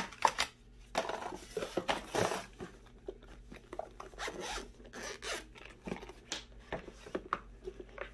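A zipper on a hard-shell earphone carrying case being unzipped around the case in a series of short rasping pulls. A single sharp knock comes right at the start.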